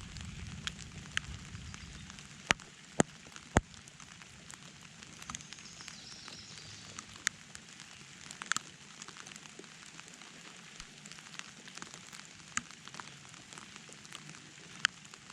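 Steady rain hiss with large drops tapping close by, a few of them loud single taps. A low rumble fades away in the first couple of seconds.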